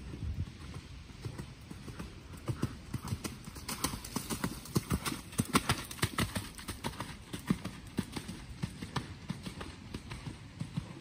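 A horse's hoofbeats on a soft dirt arena, a steady rhythm of thuds that grows louder as the horse passes close by in the middle and then fades.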